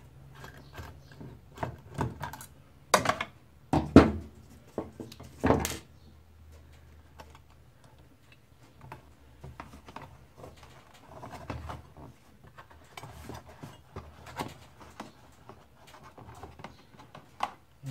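Plastic clicks and knocks from a Lexmark MS310/MS510 printer drum unit being handled and its parts fitted back together by hand. There are three louder knocks about three, four and five and a half seconds in, then quieter scattered clicking.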